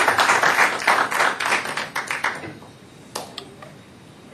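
Audience applauding, the clapping dying away about two and a half seconds in, followed by a couple of sharp taps.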